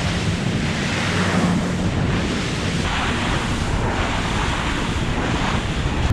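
Wind buffeting the microphone and water rushing past the hull of a boat running at speed, with a low engine hum underneath and surges of spray about once a second in the second half.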